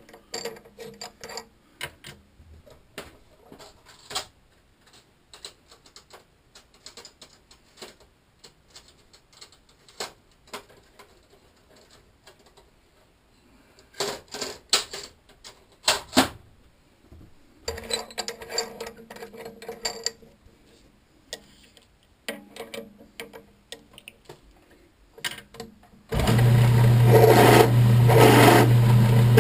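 Light metal clicks and rattles of drill bits and a chuck being handled. About 26 seconds in, a drill press motor switches on and runs with a loud, steady hum.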